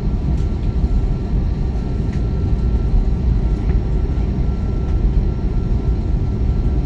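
Airbus A321neo's Pratt & Whitney PW1100G geared turbofan engines running, heard inside the cabin as a steady low rumble with a faint steady whine. A few faint ticks sound over it.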